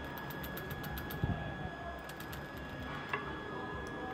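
Rapid light ticking of a metal fly-tying hair stacker being tapped to even the tips of calf body hair, in two short runs in the first half. A soft thump comes about a second in and a single click near the end, over a faint steady high hum.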